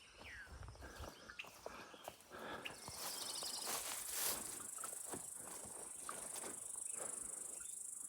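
A steady, high-pitched insect chorus comes in about three seconds in and keeps going, over the soft steps of someone walking on a trail.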